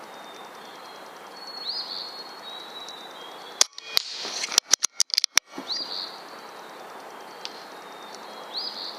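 A single rifle shot, then about a second later a quick run of sharp clicks.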